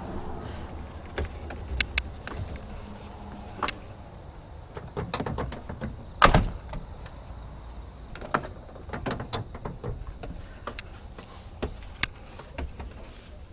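Scattered clicks and knocks as a truck cab door and the things inside the cab are handled, with one loud knock about six seconds in, over a low steady hum.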